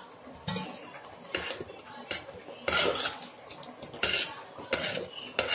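A metal ladle stirring thick batter in a metal pot, scraping and clinking irregularly against the pot's sides and bottom, loudest about three seconds in.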